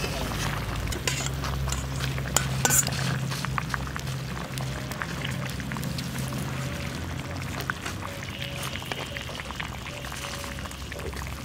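Fish and papaya curry bubbling at a boil in a metal wok, with a few sharp clinks of the metal spatula against the wok in the first few seconds.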